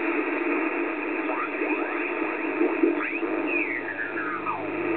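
Receiver audio from an Icom IC-7410 HF transceiver as its tuning dial is turned down through the 20-metre band: a thin, steady hiss of band noise with garbled signals sliding up and down in pitch as the dial passes them. The presenter takes the band to be in poor condition.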